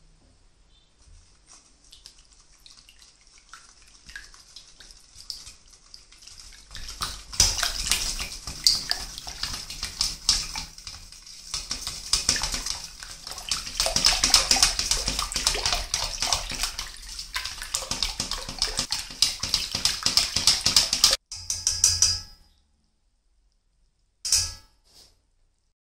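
Wire whisk beating egg yolks into evaporated and condensed milk in a stainless steel bowl: sloshing liquid and rapid clicking, starting gently and turning into fast whisking about seven seconds in. It stops about twenty-two seconds in, and one brief clatter follows near the end.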